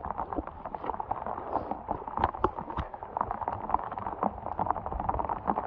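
Footsteps in boots splashing through shallow floodwater and wet mud: many quick, uneven splashes.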